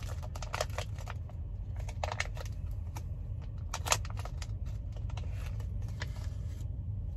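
Crinkling and rustling of a ration cookie packet being handled and opened: many small irregular crackles and clicks, over a steady low hum.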